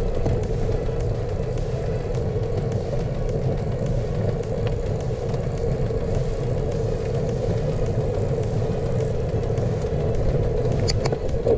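Steady wind and road noise from a bicycle-mounted camera while riding on rough pavement, with tyre rumble and a brief click near the end.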